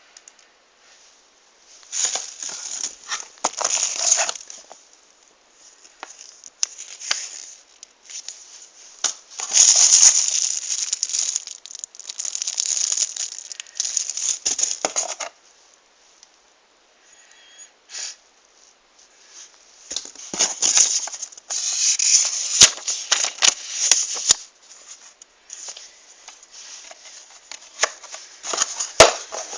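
Irregular rustling, crinkling and rattling as the tablet's packaging is handled, in bursts of a few seconds with short quiet gaps between them.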